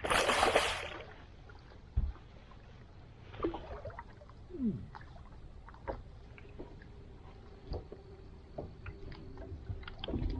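Water lapping and sloshing against the hull of a small fishing boat, with scattered light knocks. A short loud burst of noise opens it.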